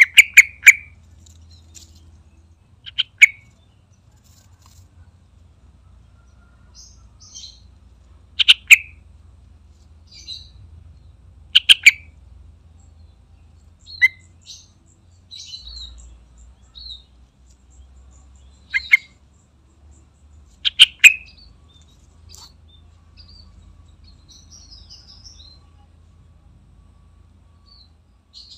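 Yellow-vented bulbul singing: about seven short, loud phrases spaced a few seconds apart, with fainter high chirps between them.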